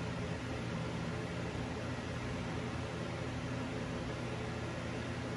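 Steady low hum and hiss of background room noise, with no distinct sounds on top.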